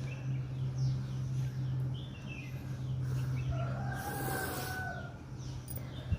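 A person blowing their nose hard: one long, drawn-out honking blow with a rush of air, about three and a half seconds in. Small birds chirp faintly over a steady low hum.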